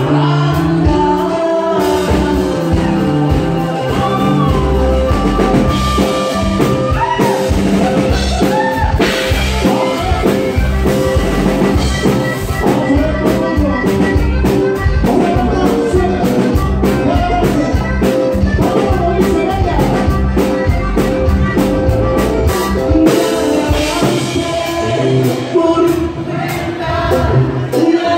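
Live band playing amplified Latin dance music: accordion over a drum kit, electric bass and keyboard, with singing.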